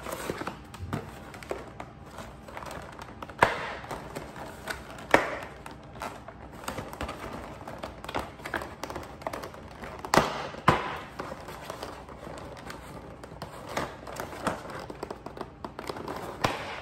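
Plastic packaging being handled: a frosted plastic box and sheet rustling and scraping, with several sharp knocks as it is set down and tapped against the counter, the loudest about three and a half, five and ten seconds in.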